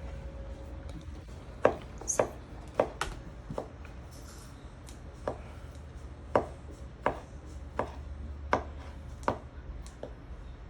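Knife chopping fresh cilantro on a cutting board: a dozen or so separate, unhurried strokes at an uneven pace, starting about a second and a half in.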